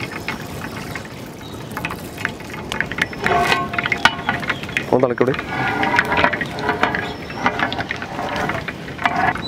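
Seeds sizzling and crackling in hot oil in a large metal pan: a steady hiss with many small pops. A metal ladle stirs them near the end.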